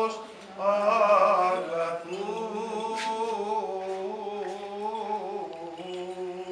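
Male voices singing Greek Orthodox Byzantine chant in long, slowly sliding held notes, with a short breath pause just after the start.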